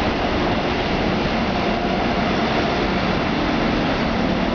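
Steady running noise of an Amsterdam metro train under way, heard from inside the passenger car, with a faint steady hum under the rolling noise.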